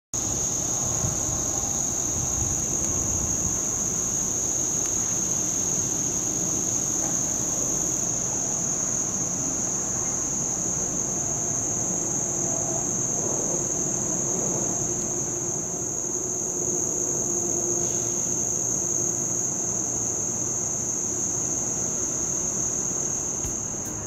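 Cicadas buzzing in a loud, steady, high-pitched drone that holds without a break.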